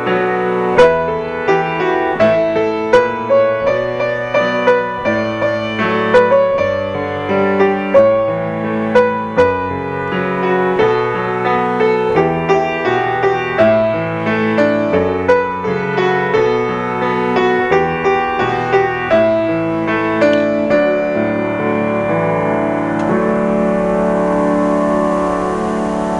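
Solo grand piano playing a worship-song arrangement in flowing chords and melody, then closing on one long held chord that rings on for the last five seconds.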